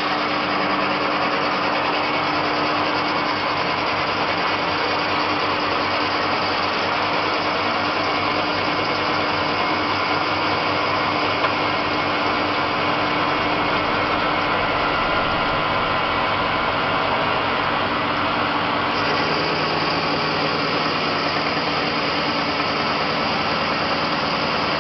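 Small CNC lathe (320 × 750) running, its spindle turning a workpiece as the tool cuts with coolant flowing: a continuous machine whir with a steady hum, its lower tone shifting slightly about three quarters of the way through.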